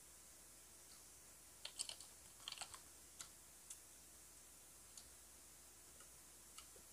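Quiet eating of grilled street-food skewers close to the microphone: scattered small mouth clicks and smacks, a quick run of them a little under two seconds in, then single ones about a second apart.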